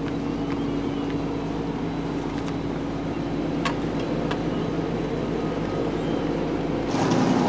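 A motor vehicle's engine running steadily, with a few light clicks over it. Near the end the sound shifts and gets louder.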